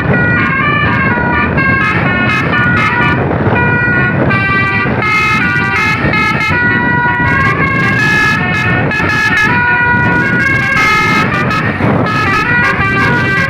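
Indonesian bus 'telolet basuri' musical horn playing a rapid tune of high notes that step quickly from pitch to pitch, with engine and road noise underneath.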